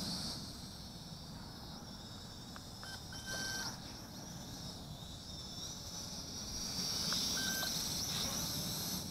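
Mould King 33043 Super F micro quadcopter's motors and propellers whining in flight, the high-pitched whine wavering in pitch with the throttle and growing louder for a few seconds near the end. Two short beeps sound about three seconds in and again about seven seconds in.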